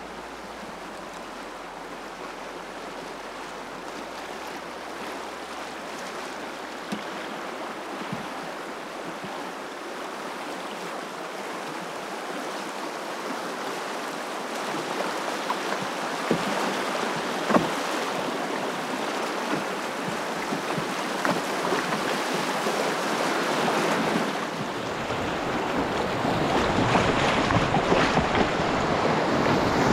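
Rushing water of a small rapid, growing steadily louder as a canoe runs down it, with a few sharp knocks along the way.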